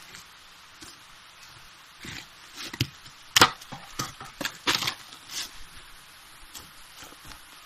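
Irregular sharp cracks and snaps of wood, clustered between about two and five seconds in, over a faint steady hiss.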